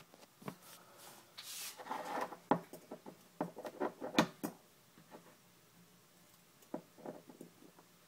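Light clicks and short scrapes of small metal bike hub parts being handled and prised with a dental pick. The sounds are busiest in the first half, with a few more clicks about three quarters of the way through.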